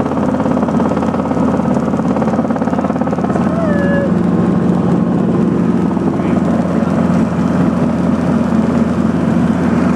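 Helicopter running in flight, a loud steady drone of engine and rotor with a fast, even chop.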